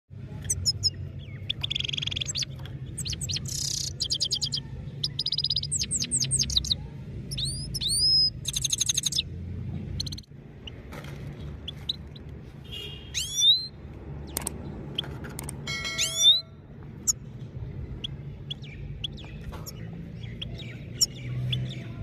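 European goldfinch singing: rapid twittering trills and quick rising notes, densest through the first half, then scattered calls and chirps.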